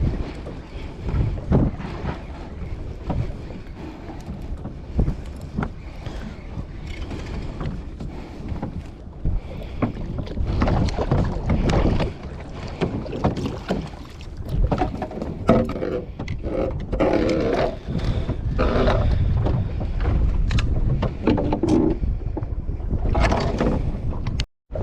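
Wind buffeting the microphone over the sound of a small boat rocking on the sea, with water splashing against the hull.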